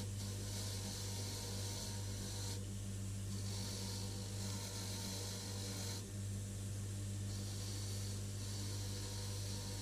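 Mac Afric bench grinder motor running with a steady hum while a rusty steel surface gauge base is held against its wire wheel, giving a hissing scrub in three spells with short breaks about a quarter of the way in and just past halfway as the part is turned: wire-brushing the rust off.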